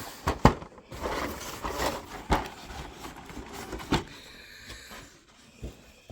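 A model-kit cardboard box being handled: a few sharp knocks and taps, the loudest about half a second in, with rustling in between.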